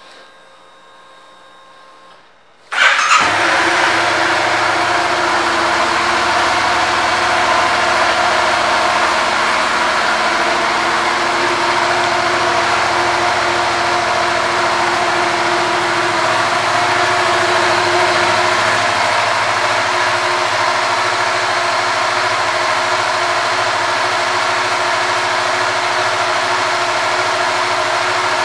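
2019 Yamaha MT-07's 689 cc parallel-twin engine starting about three seconds in, catching at once, then idling steadily.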